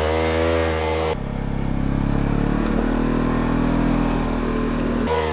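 Motorcycle engine running steadily at low revs, its note changing abruptly about a second in.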